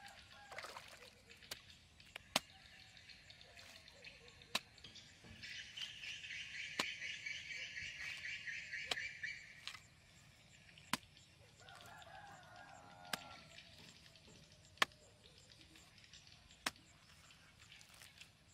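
A hoe chopping into wet earth, a sharp knock about every two seconds. A high hissing buzz rises for a few seconds in the middle, and a chicken calls briefly about two-thirds of the way through.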